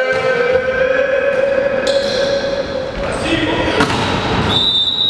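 Volleyball rally in an echoing sports hall: a volleyball struck hard, with one sharp smack about four seconds in as a player spikes at the net. Held tones and voices sound behind it.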